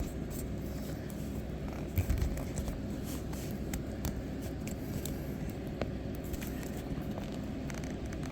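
Hands working a rubber windshield seal and its trim into place: scattered light clicks and scrapes, with a sharper knock about two seconds in, over a steady low hum.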